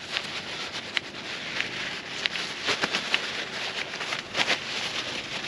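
Rustling with scattered light clicks and knocks: a rag wiping and handling plastic fuel filter parts.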